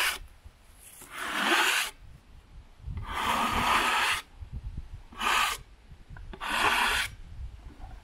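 Hand scraper dragged along the face of a freshly sawn red oak slab, four scraping strokes that clear sawdust off the cut.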